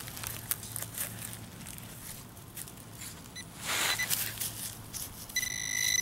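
Gloved hand scraping and pushing loose soil and dry grass in a dig hole, with faint scrapes and a short rustle. Near the end a metal-detecting pinpointer starts a steady, high electronic beep, the sign that it has found metal in the hole; the beep breaks off briefly just as it ends.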